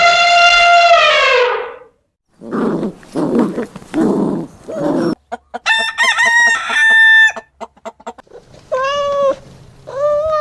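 A sequence of different animal calls cut one after another. It opens with one long call that holds its pitch and then falls away. A run of low, rough calls follows, then higher calls mixed with clicks, and two short calls near the end.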